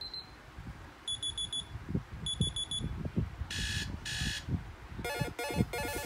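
Alarm-tone previews from a Sony Xperia V's loudspeaker: two quick runs of four high beeps, then two short buzzes, then a rhythmic multi-note electronic tone starting about five seconds in. Low thumps and rumble run underneath.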